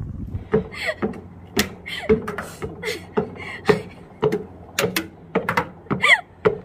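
A hiker climbing steep rock steps: irregular footfalls and knocks about one or two a second, with hard breathing and short vocal sounds in between.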